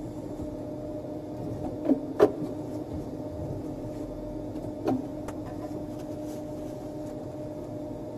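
Elevator car humming steadily as a low two-tone drone, with a few short knocks and clicks; the loudest comes about two seconds in, another near five seconds.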